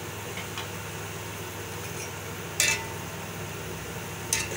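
Two short ringing clinks of a utensil against the metal cooking pot, about two and a half and four and a quarter seconds in, as fried onions are scooped out of the hot ghee. A steady low hum runs underneath.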